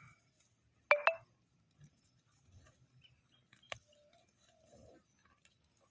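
Two quick, sharp, high-pitched pings a fraction of a second apart, about a second in, followed by faint scattered clicks and rustling.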